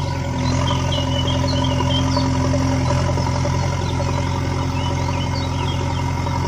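Engine idling steadily, an even low hum that does not change in pitch or level.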